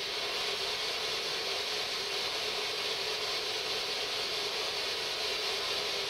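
Ghost box, a radio sweeping through the frequencies, giving out a steady hiss of radio static from its speaker. No voice or station comes through it.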